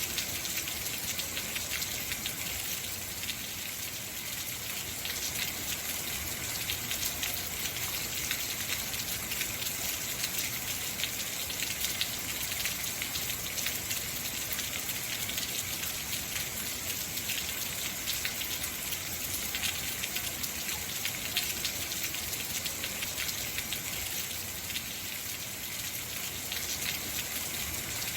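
Heavy rain falling steadily, a dense even hiss of many fine drop patters.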